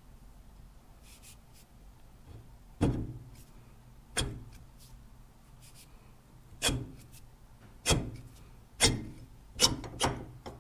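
Sharp metal knocks from the steel ram of a Powerbuilt 5-ton bottle jack being worked down into its cylinder during reassembly. There are seven knocks, irregularly spaced and each ringing briefly, starting about three seconds in and coming closer together near the end.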